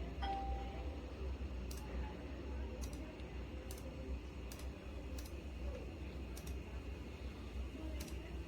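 Clicky optical key switches on a Razer Huntsman Mini keyboard, single keys pressed now and then, about seven sharp clicks at uneven intervals over a steady low hum.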